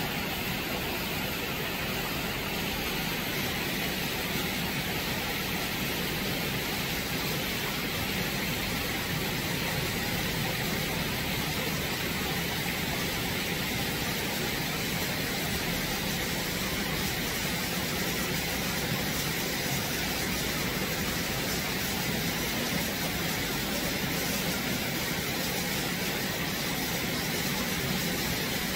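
Shallow stream water flowing over rocks, a steady rush of running water.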